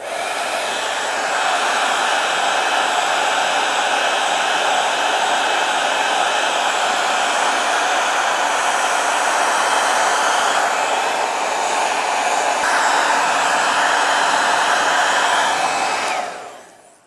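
Electric hot-air blower running steadily, heating a leather glove so the Sno-Seal wax melts into it; it is switched off near the end and winds down.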